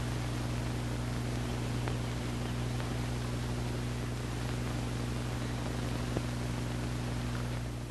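A steady low electrical hum under a constant hiss, with a few faint isolated clicks.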